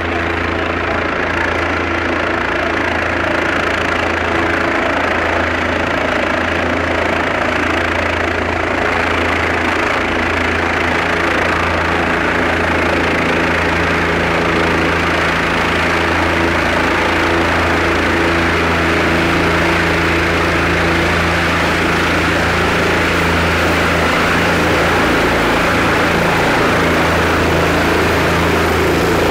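Large engine running steadily at idle: a constant low hum with higher droning tones and a broad rushing noise, unchanging throughout.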